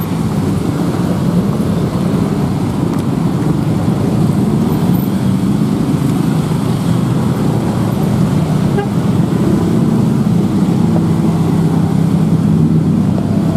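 Dense road traffic, mostly scooter and motorcycle engines mixed with minibuses, running and moving off together in a steady drone.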